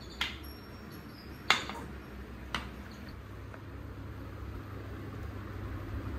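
Wooden push-along duck toy knocking on a hard tiled floor: three sharp clacks, the second one, about a second and a half in, the loudest.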